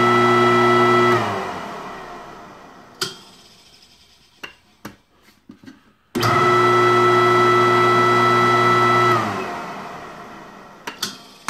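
Newly wired electric grinder motor humming steadily at full speed, switched off about a second in and coasting down with a falling pitch over a few seconds. A switch click follows, then the motor starts again about six seconds in, runs for about three seconds and is switched off, winding down again.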